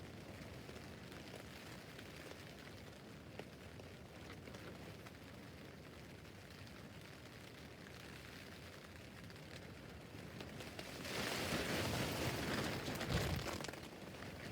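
Rain falling steadily on a tent roof, an even hiss of drops on the fabric. About eleven seconds in, a louder rush swells for roughly three seconds and then falls back.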